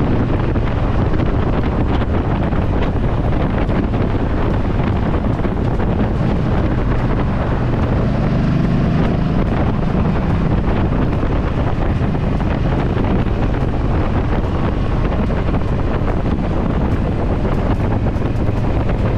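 Heavy wind rushing over the microphone on a moving Yamaha V Star 1300 motorcycle, with the steady low hum of its V-twin engine underneath.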